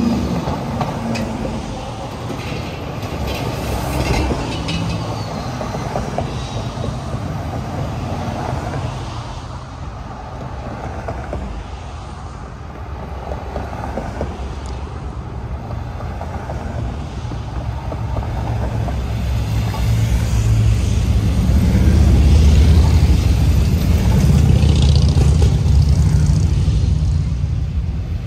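Motorcade vehicles driving past, a steady rumble of engines and tyres that grows louder about twenty seconds in and stays loud near the end.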